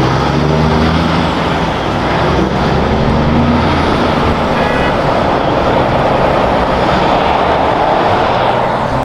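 Heavy truck engine running with road noise: a loud, steady sound with a low engine hum underneath, and a brief high-pitched squeal about five seconds in.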